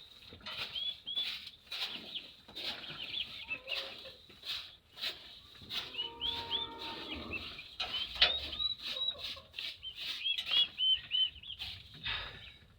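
Young chicks peeping in many short, high chirps, with scattered rustling and scuffling among them.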